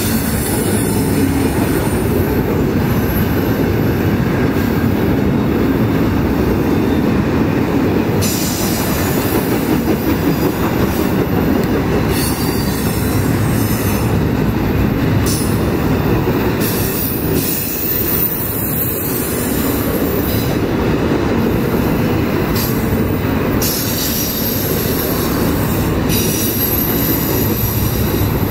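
CSX double-stack intermodal freight train's loaded well cars rolling past close by: a loud, steady noise of steel wheels running on the rails, with no pause.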